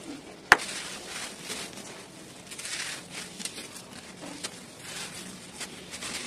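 Dry, compacted red dirt blocks broken and crumbled by hand: a sharp crack about half a second in as a piece snaps, then irregular gritty crunching as the block is pressed apart and the powder falls away.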